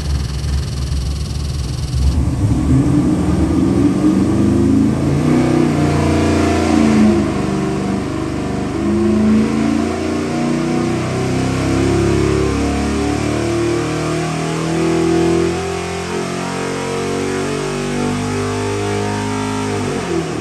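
Chevrolet LS 441-cubic-inch V8 airboat engine running on an engine dynamometer: running steadily at first, then about two seconds in it revs up and runs loud under load through a dyno power pull.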